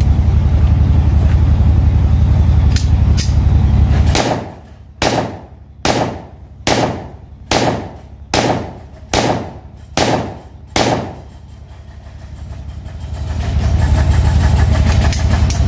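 Nine pistol shots about 0.85 s apart from a Zigana-style .30 bore (7.62×25mm Tokarev) pistol being test-fired, each a sharp crack with a short echo. A steady low hum sounds before the shots and after them, dropping away while they are fired.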